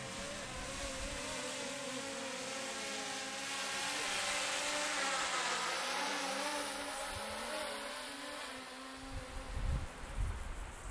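Quadcopter drone flying close by, its propellers giving a buzzing whine of several tones that waver up and down in pitch, louder toward the middle and then fading. Gusts of wind buffet the microphone near the end.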